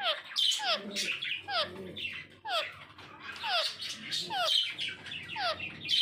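Parakeets calling in an aviary, likely plum-headed parakeets: a steady run of short falling chirps, about two a second, with other calls overlapping higher up.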